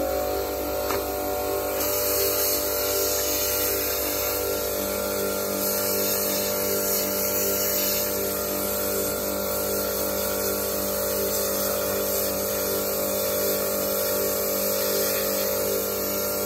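Electric pressure washer running steadily: the pump motor hums while the lance sprays a jet of water onto a muddy cycling skinsuit on concrete.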